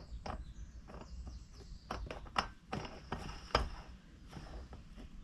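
Metal clutch parts of a Stihl MS 200T chainsaw being handled and turned by hand: a string of irregular small metallic clicks and light knocks.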